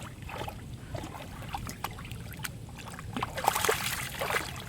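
A dog wading and rooting in a muddy water hole: wet sloshing, squelching and small splashes, growing busier and louder in the last second or so.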